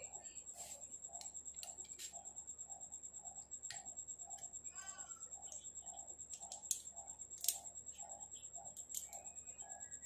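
Small metal clicks and taps from handling a reverse light switch and prodding its connector with a small screwdriver, with two sharper clicks about two thirds of the way in. Under them runs a steady ticking of about three beats a second and a faint high whine.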